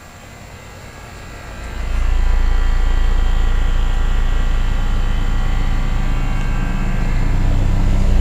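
1987 Carrier Round One 3-ton central air-conditioner condensing unit running, its compressor humming and condenser fan turning. About two seconds in it becomes much louder and stays loud, with a deep hum and a steady whine of several tones.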